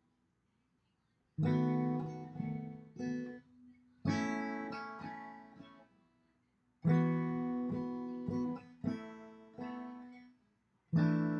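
Acoustic guitar playing strummed chords, each chord left to ring and fade before the next, after about a second of near silence at the start.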